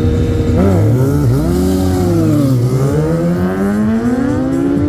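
Drag-racing motorcycle engines at full throttle, their pitch dipping sharply about a second in, then climbing steadily as the bikes accelerate down the strip.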